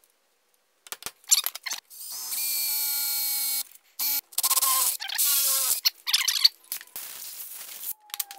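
Cordless drill boring a hole through a metal pedal plate mounted on a brake pedal, run in two short bursts of a steady motor whine with clicks and rattles between them.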